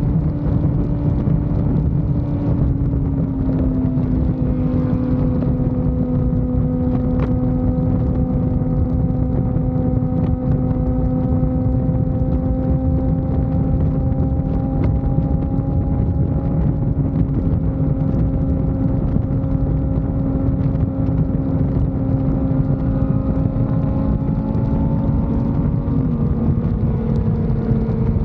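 Suzuki GSX-R600's inline-four engine running at a steady highway cruise, under heavy wind rush and road noise on the bike-mounted microphone. The engine note dips slightly about three seconds in and again near the end.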